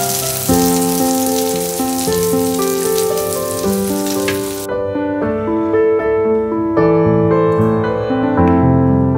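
An egg omelette sizzling in a hot cast iron skillet, over gentle piano music; the sizzle stops suddenly about halfway through, leaving only the piano.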